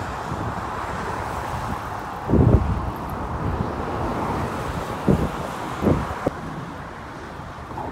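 Steady rush of road traffic passing on the bridge, mixed with wind noise on the microphone. A few low thumps break through, the strongest about two and a half seconds in.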